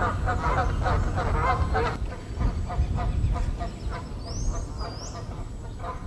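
Canada geese honking rapidly and overlapping for about two seconds, then only a few scattered honks. Around four to five seconds in, a small bird gives two short, high whistled notes.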